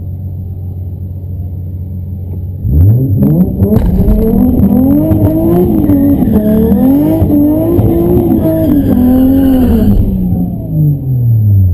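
Toyota JZX90 Mark II Tourer V's 1JZ-GTE twin-turbo straight-six, heard from inside the cabin, idling on the drag strip start line, then launching hard about three seconds in: the engine note climbs and drops again several times as it is run up through the gears on a quarter-mile pass, and near the end the pitch falls away.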